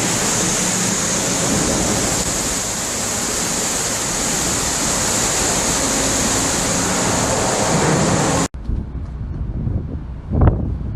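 Storm wind and heavy sea: a dense, steady rush of wind and waves. It cuts off suddenly about eight and a half seconds in, giving way to a quieter low rumble with one short, loud thump near the end.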